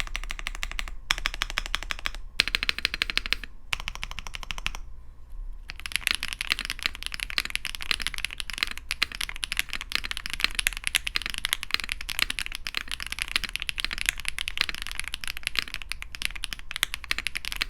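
Fast typing on a Shadow ZEUS65 gasket-mount mechanical keyboard with factory-lubed HMX Lemon Grape linear switches and PBT keycaps: dense clacking in bursts with short pauses for the first six seconds, then continuous rapid typing.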